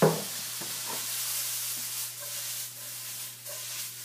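A skillet of sautéed vegetables and shredded chicken sizzling with a swell of hiss just after Worcestershire sauce is splashed in, opening with a short knock. Toward the end, food scrapes and shuffles as the pan is shaken over the burner.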